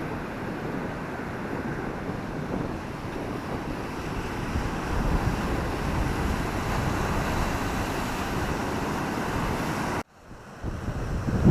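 Sea waves washing on the beach, with wind buffeting the microphone in gusts. The sound cuts out abruptly near the end and comes back with heavier wind rumble.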